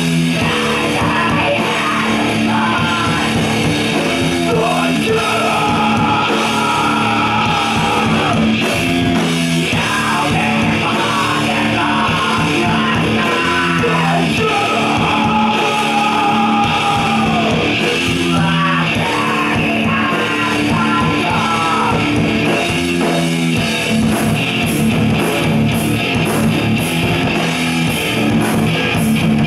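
A live heavy rock band playing loudly: distorted electric guitar, bass and drums under a sung and shouted vocal through the microphone. The vocal stops about three-quarters of the way through, leaving guitar and drums with regular cymbal hits.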